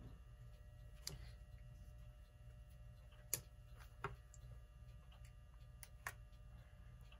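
Near silence over a low steady hum, broken by a handful of faint, irregular light clicks, the sharpest about three seconds in: small handling noises of a clock rotor and a plastic oil dispenser bottle as the rotor is filled with oil.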